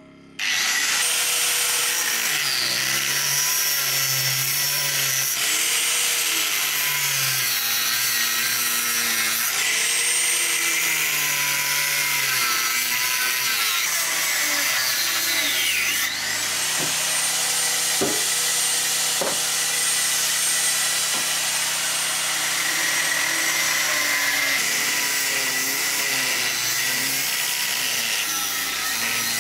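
Electric angle grinder with a cutting disc sawing through beef bones, starting up about half a second in. Its high whine dips in pitch again and again as the disc bites into the bone under load and rises as it frees, with a few sharp knocks midway.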